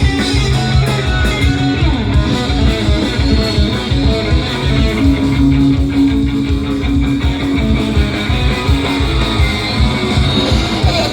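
Punk rock band playing live, loud: electric guitar, bass and drums in an instrumental stretch between vocal lines.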